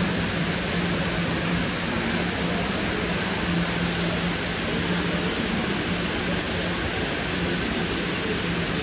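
Dubai Mall's indoor waterfall: water falling in a steady, even rush, with a steady low hum underneath.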